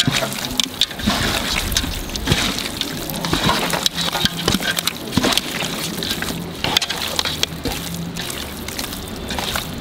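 Hands squelching through quails coated in thick, wet masala paste in a large metal pot, a dense irregular run of short wet smacks and slops as the marinade is worked in.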